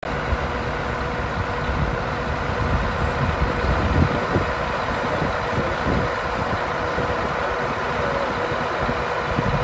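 Scania R144-530's 14-litre V8 diesel engine idling steadily.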